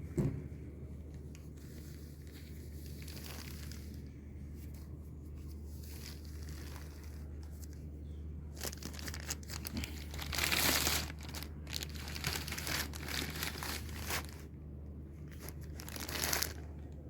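Packaging being unwrapped, crinkling and tearing in irregular bursts that grow louder about halfway through, over a steady low hum.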